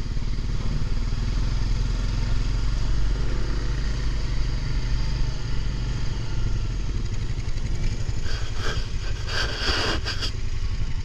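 Honda ATV engine running at low speed as the quad is ridden slowly over dirt trails. About eight seconds in comes a two-second rush of noise.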